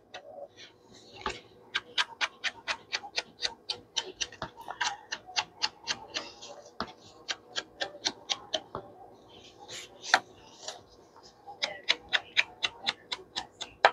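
Quick, light, repeated taps at about three to four a second, as in dabbing ink onto paper with a craft tool to distress it. The taps pause briefly about two-thirds of the way through, and there is one louder knock near the pause.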